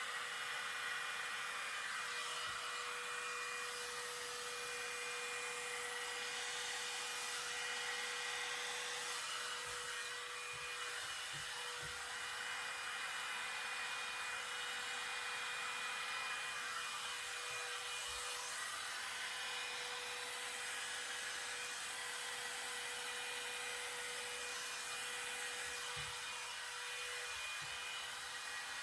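A very small hairdryer running steadily, blowing air with a constant hiss and a steady motor whine.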